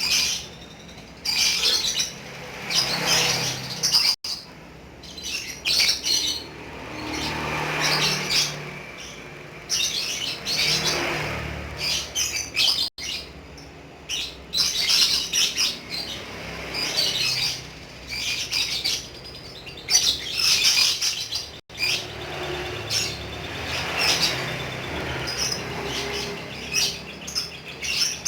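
Lovebird chattering in repeated bursts of shrill, high twittering: the long 'ngekek' song of a bird in full voice.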